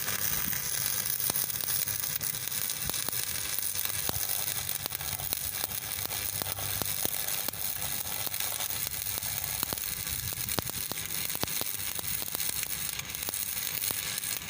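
Stick (arc) welding: a steady frying sizzle full of small sharp crackles, with a faint low hum underneath.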